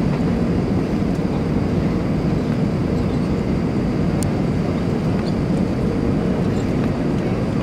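Steady cabin noise inside an Airbus A319 descending on approach: jet engines and rushing airflow in an even, low rumble.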